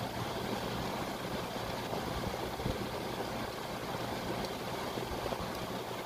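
1953 Philco-York console air conditioner running in cooling mode: a steady rush of air from the blower with a constant low hum underneath. The unit is blowing air at about 45 degrees from the grille.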